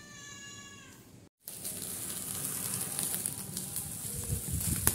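Box cutter slitting the bubble wrap around a boxed plastic wardrobe: a steady high hiss with fine crackling. Before it, in the first second, a brief faint high tone.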